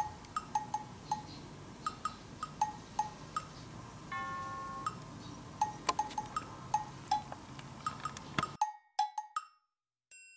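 Light background music: a plinking tune of short wood-block and bell-like notes, with a brief held chord about four seconds in. Faint room noise runs underneath and cuts out near the end.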